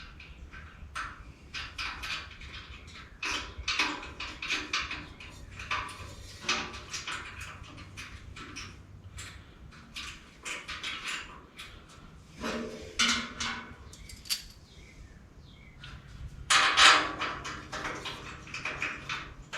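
Metal clinking and clattering, many short knocks and clicks, from shock absorber mounting hardware and hand tools being handled during a rear shock install, with a louder, longer scraping rattle near the end.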